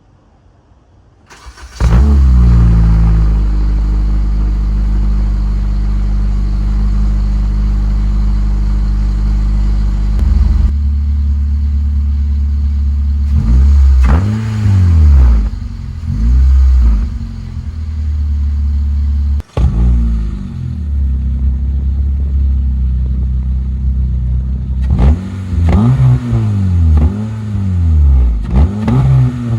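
Honda R18 1.8-litre inline-four with the muffler deleted, cold-started about two seconds in and running at a steady high idle that steps down in pitch about ten seconds later. From about thirteen seconds on it is revved in a series of short throttle blips, each rising and falling.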